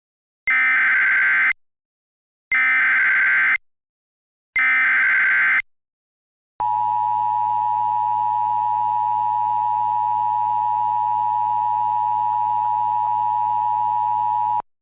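Emergency Alert System signal: three one-second bursts of SAME header data tones, a second apart, then the steady two-tone EAS attention signal held for about eight seconds before cutting off. Here it opens an Illinois required monthly test alert.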